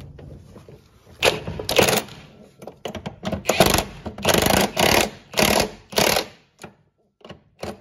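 Milwaukee M12 cordless ratchet run in about seven short bursts as it spins down and tightens the sway bar end-link nuts with a 16 mm socket.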